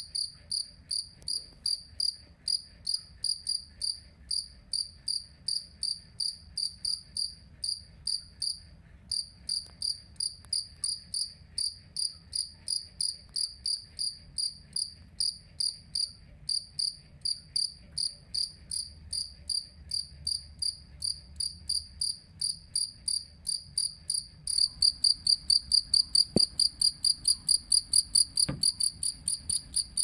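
A male jangkrik kalung (two-spotted field cricket) singing its calling song with raised wings: a steady run of short, high chirps, about two to three a second. About three-quarters of the way through, the chirps turn louder and quicker.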